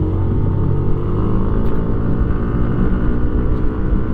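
Yamaha Aerox 155 SP scooter's 155 cc single-cylinder engine running at full throttle at about 70 km/h, its pitch climbing slightly and then holding steady as it nears top speed.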